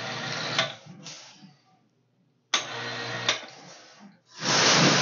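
Electric hoist on a davit arm running in three short bursts as it lifts a 14-gauge steel sheet off a plasma table. The first two bursts start with a sharp click; the last, near the end, is the loudest.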